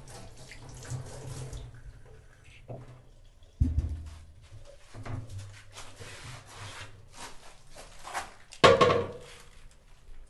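Water running from a gooseneck kitchen tap into a stainless steel sink, easing off after a second or two. Then comes rubbing and handling noise, with a loud thump a little over a third of the way in and another near the end.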